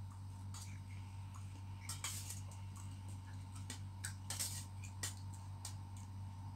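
Metal spoon clinking and scraping against a stainless steel bowl of rice, in irregular short clicks that are loudest about two seconds in and again around four and a half seconds in. A steady low hum runs underneath.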